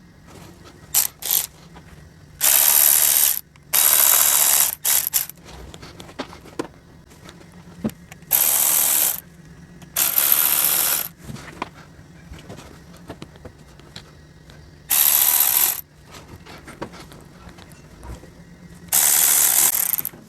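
Ratchet wrench with a T30 Torx bit clicking in quick runs as oil pan screws are backed out. There are six loud bursts of about a second each, with scattered light clicks between them.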